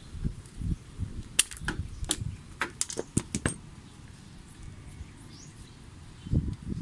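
Hand tools working an MC4 solar connector and cable: a quick, irregular run of about ten sharp metal and plastic clicks in the middle, with low handling knocks and rustling around it. Faint bird chirps sound in the background.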